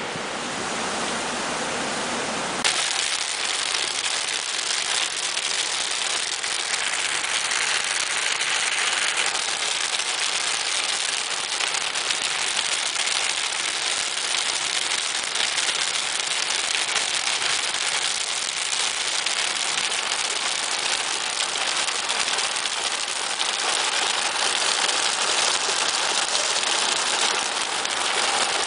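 Heavy rain pelting a car's windshield and roof, heard from inside the car as a dense, steady hiss. It starts abruptly about three seconds in, after a short stretch of softer wind-like noise.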